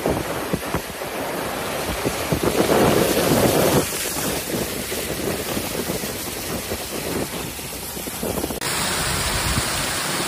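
Muddy floodwater rushing across a road, with wind buffeting the microphone. About eight and a half seconds in, the sound changes abruptly to a flash flood pouring down a street.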